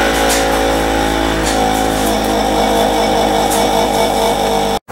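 Delta bench grinder running with a steel commercial mower blade held against its grinding wheel to sharpen the edge: a steady motor hum under a gritty grinding noise with occasional ticks. It cuts off suddenly near the end.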